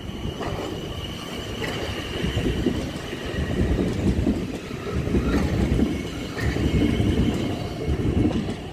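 South Western Railway Class 450 Desiro electric multiple unit running past at close range: a rumble of wheels on rail that grows louder and swells and falls as the coaches go by, with a few sharp clicks. A thin high whine fades out after about three seconds.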